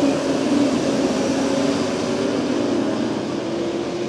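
Late model stock car engines running at racing speed as a pack of cars goes by, a loud steady drone whose pitch shifts a little.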